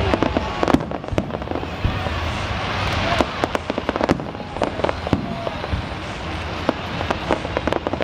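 Aerial fireworks shells bursting in a fast, irregular run of sharp cracks and pops.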